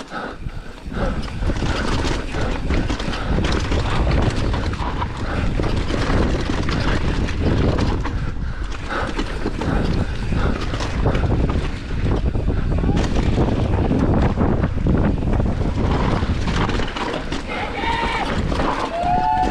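Commencal Meta AM 29 enduro mountain bike descending a rough, rocky trail at speed: tyres rumbling and crunching over rock, the frame, chain and suspension rattling and clattering, with wind on the microphone. Near the end come a few short, high squeals.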